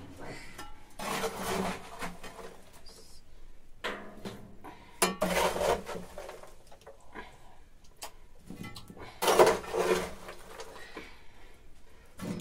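Kitchenware clattering and knocking in three bursts a few seconds apart.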